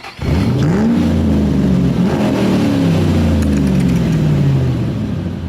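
A car engine revs up sharply, then its pitch falls slowly as it winds back down over about four seconds.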